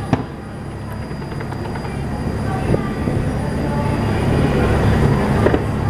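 Ferry boat's engine running with a steady low rumble that grows slightly louder. A sharp bang of distant fireworks comes just after the start, with a couple of fainter pops later.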